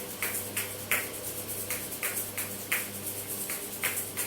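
Damaru, the hand-held pellet drum, twisted back and forth so its corded beads strike the two drumheads in an even rhythm of about three beats a second.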